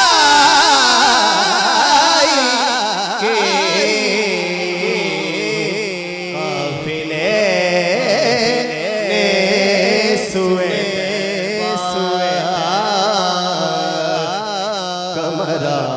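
A man reciting a naat, Urdu devotional poetry sung unaccompanied in long, wavering melismatic lines, with a steady low hum beneath.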